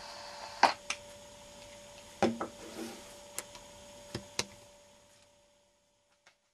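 A handful of separate clicks and knocks from handling the microphone lead and connectors of a small homemade AM transmitter, over a faint steady tone. The sound drops to near silence about five seconds in.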